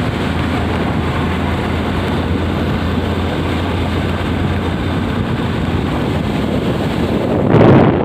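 Wind rushing over the microphone of a moving vehicle, over a steady low hum of the vehicle and road. It swells louder briefly near the end.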